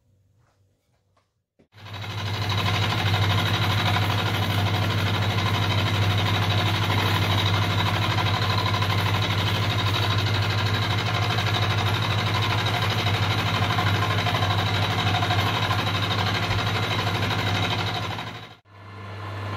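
Benchtop milling machine running, a steady motor hum with a steady whine over it. It starts about two seconds in and cuts off abruptly shortly before the end, leaving a quieter hum.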